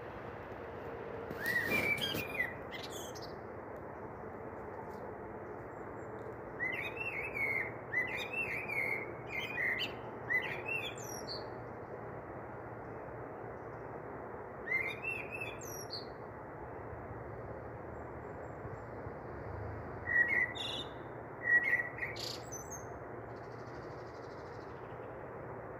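Small birds chirping and twittering in several short bursts over a steady background hiss.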